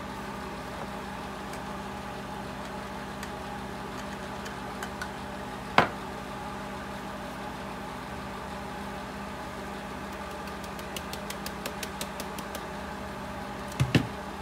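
A fan's steady hum throughout. Over it come a sharp knock about six seconds in, a quick run of light taps near the end as ground pepper powder is knocked out of a blade spice grinder's cup into a glass jar, and two knocks as the grinder is set down on the counter.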